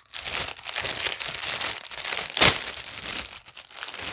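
Packaging crinkling and rustling as a toy is unwrapped by hand, with one louder sharp crunch about two and a half seconds in.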